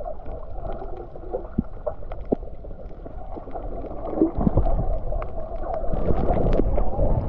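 Muffled underwater sound from a camera held beneath the sea's surface: a low rumble of moving water with scattered faint clicks and gurgles.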